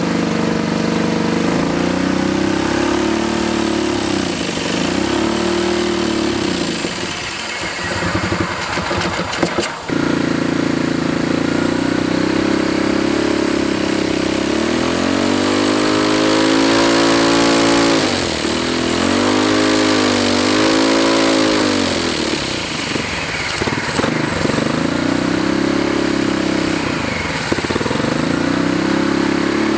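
Turbocharged Predator 212 single-cylinder engine running under load on a water brake dyno, its revs rising and falling several times as the throttle is worked to see how it takes boost. The sound dips briefly about eight to ten seconds in.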